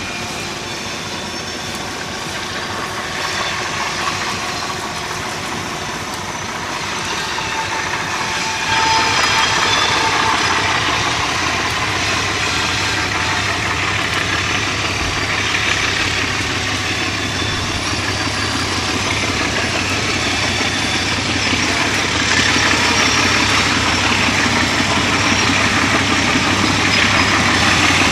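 Alco RS-18u diesel-electric locomotive's V12 engine running as the locomotive approaches slowly, growing steadily louder. About nine seconds in the engine sound jumps up sharply and keeps building toward the end.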